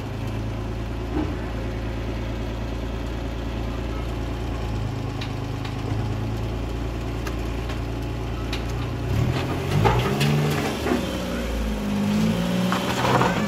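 Engine of a homemade front loader running steadily, then revving up and down from about nine seconds in as the bucket is pushed into a sand pile.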